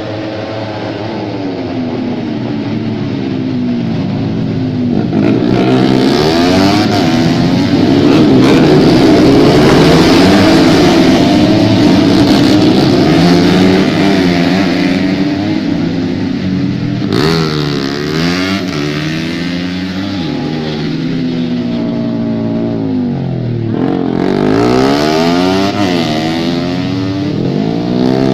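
Several racing motorcycles passing at full throttle, their engine notes overlapping and rising and falling in pitch as they go by. The loudest pack passes about six to fourteen seconds in, with more bikes passing near seventeen seconds and again near twenty-five seconds.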